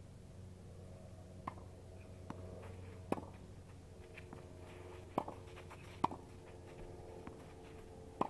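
Tennis ball being struck by rackets and bouncing on the clay court during play: a handful of sharp pops one to two seconds apart, over a faint steady hum.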